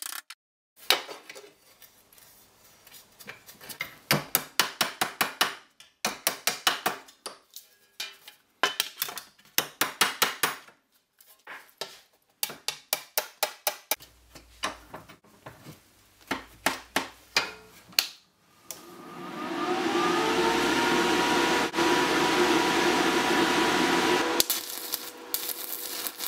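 A hammer striking thin steel sheet in quick runs of several blows. About 18 seconds in, an electric angle grinder spins up, its whine rising and then holding steady for about six seconds. It cuts off near the end, followed by the crackle of a stick welding arc.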